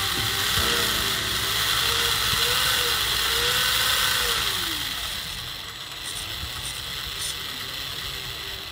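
Small DC motor driving a homemade RC truck's spur-gear drivetrain, turning its driveshafts and axles with a steady gear whir. The whir eases off and gets quieter about halfway through.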